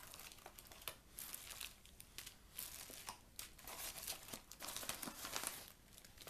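Plastic packaging and small zip-lock bags of half pearls crinkling and rustling in irregular bursts as they are rummaged through and taken out of a parcel.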